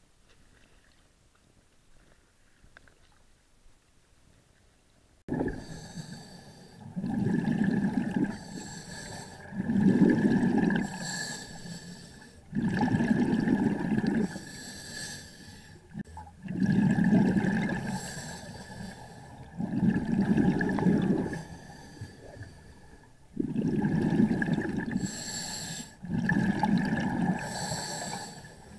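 Near silence for about five seconds, then a sudden cut to a scuba diver breathing underwater through a regulator. Loud gurgling rushes of breath and exhaled bubbles come every couple of seconds over a steady high whine.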